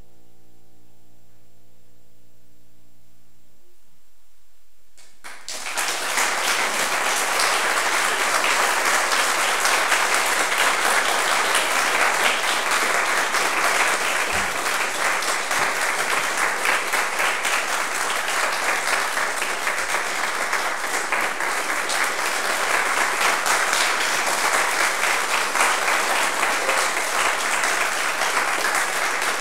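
A grand piano's final chord is held and then cut off, and a little over a second later an audience breaks into sustained applause that continues steadily.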